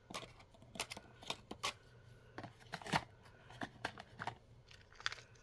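Miniature toy food pieces and a small clear plastic case being handled and set into a display shelf: a dozen or so light clicks and taps at irregular intervals.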